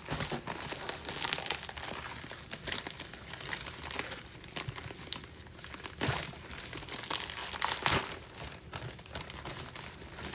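Packaging crinkling and rustling as a parcel is opened by hand, with a few sharper, louder crackles partway through.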